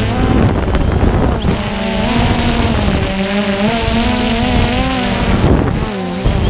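DJI Phantom 2 quadcopter's four electric motors and propellers humming, heard from the camera on the drone itself. The pitch wavers up and down as the throttle changes, then dips sharply near the end before picking up again.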